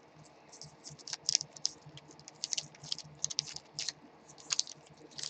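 Quick, irregular runs of light clicks and taps, like typing on a computer keyboard.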